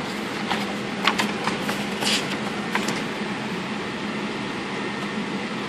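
Steady hum of airliner cabin air in an Airbus A380, with a low steady tone, over which paper menu pages rustle and tap a few times in the first three seconds, one longer swish as a page is turned.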